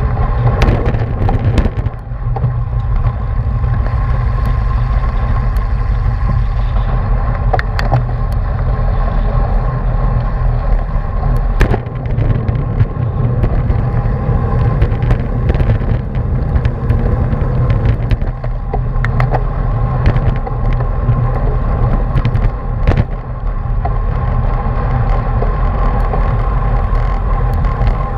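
Wind buffeting the microphone of a camera riding along on a racing bicycle at speed in a pack, with steady tyre and road rumble and occasional sharp clicks.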